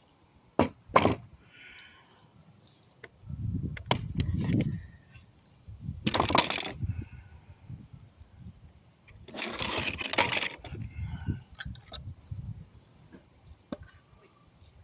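Pallet planks being denailed: a couple of sharp metallic clicks, then longer bursts of scraping and clattering of wood and nails.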